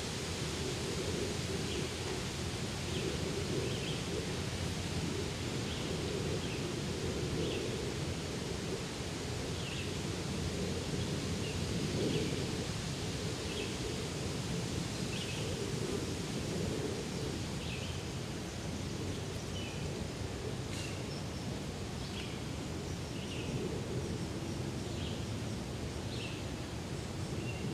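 Forest daytime ambience: a steady low rustle of wind in foliage, with short, high bird chirps repeating about once a second.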